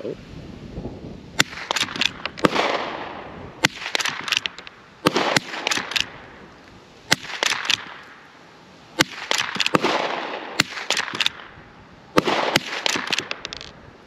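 A Rossi Rio Bravo .22 LR lever-action rifle fired in a steady string, about eight sharp shots roughly one and a half seconds apart, each with a short echo. Smaller clicks come between the shots as the lever is worked.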